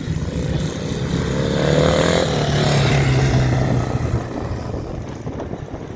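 Classic motorcycle engine accelerating as the bike rides off across the grass. The engine note rises over the first two seconds, is loudest about halfway through, then fades as the bike moves away.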